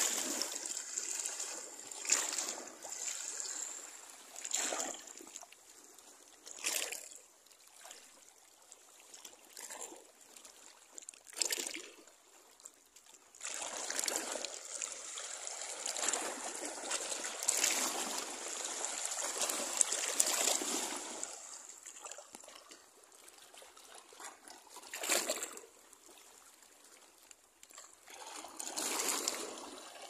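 Small sea waves splashing and washing in: short surges of rushing water every few seconds, one longer wash about halfway through, and quieter trickling between them.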